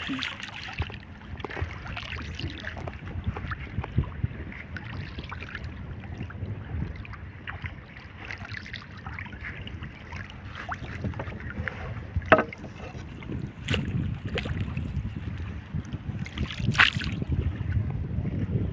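Wind on the microphone and water around a small fishing boat at sea, with a few sharp knocks, the loudest about twelve seconds in.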